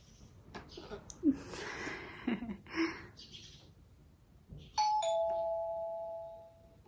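Electronic sounds from an Anpanman toy keyboard as its keys are pressed: soft noisy effects with short falling blips, then about five seconds in a two-note ding-dong chime, the lower note held for over a second before it fades.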